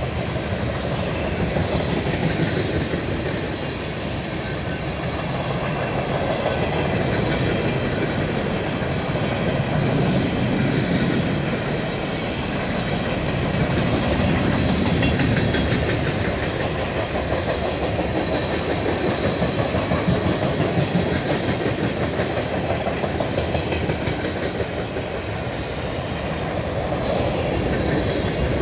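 A CSX freight train's cars rolling past: a continuous rolling noise of steel wheels on the rails that swells and eases slightly as the cars go by.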